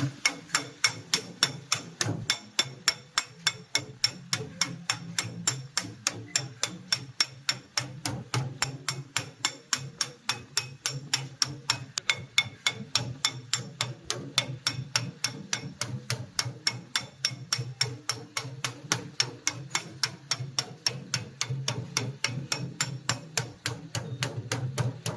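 Steady, rapid hammer blows, about three a second and evenly paced, over a low hum.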